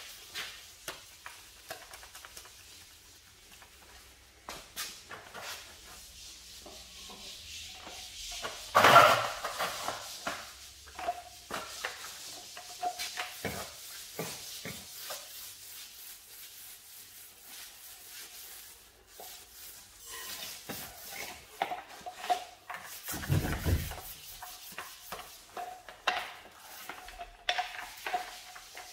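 A small paint roller and brush spreading paint on a plastered door reveal: a run of short scratchy, wet rolling and brushing strokes. There is a louder knock about nine seconds in and a low thump a little before the end.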